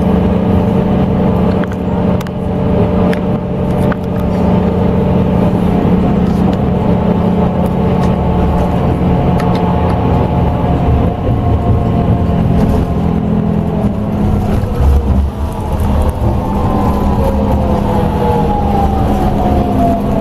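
Scania K380EB coach running on the road, heard from on board: a steady engine hum with several whining drivetrain tones, which slide down in pitch over the last few seconds.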